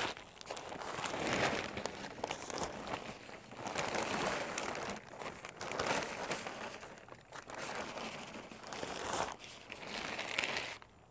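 Large plastic bag crinkling and rustling in repeated uneven surges as it is shaken and tipped out over a planter.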